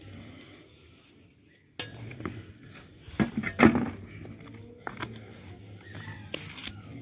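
Handling clatter of a plastic bucket feeder and a sheet-metal scoop: a green plastic lid is pressed down onto the bucket with a cluster of sharp clacks about halfway through, the loudest sound, then a few lighter knocks as the wire handle is taken up.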